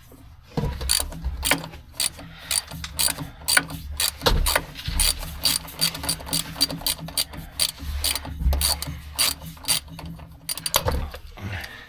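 Hand socket ratchet clicking in repeated back-and-forth strokes as it turns a driveshaft bolt loose.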